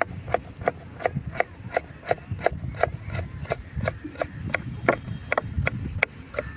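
Knife chopping on a round wooden chopping board, dicing raw mango in quick, even strokes of about three a second.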